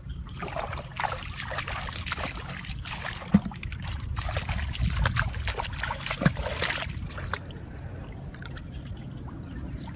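Water splashing and trickling with many small splashes, stopping about seven seconds in, over a steady low rumble.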